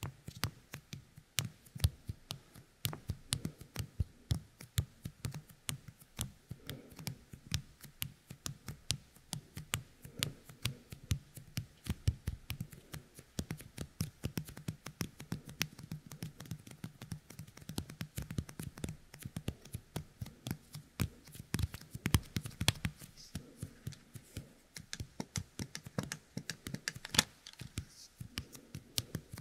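Fingertips coated with the sticky resin of a Youkai Kemuri toy pressed together and pulled apart right at the ear of a dummy-head microphone. It makes rapid, irregular sticky clicks and crackles, several a second.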